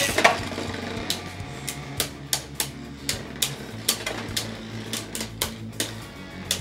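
Two Beyblade Burst spinning tops, one of them Drain Fafnir, whirring steadily on a plastic stadium floor, with sharp plastic clacks a few times a second as they knock together. There is one loud hit at the very start.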